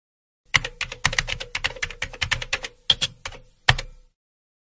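Keyboard-typing sound effect: a quick, uneven run of clicks, about six a second, ending with a last louder click.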